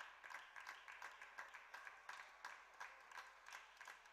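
Table tennis ball clicking on the table and off the bats in a rally, a quick uneven run of sharp ticks about three or four a second.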